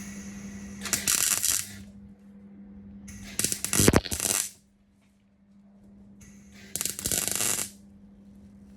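MIG welder laying three short tack welds on sheet-steel repair panel, each a crackling burst under a second long, about three seconds apart. A steady low hum runs between the welds.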